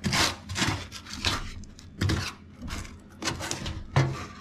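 Gloved hand rubbing and scraping over a rusty, filler-patched steel car body panel: a run of short, scratchy strokes.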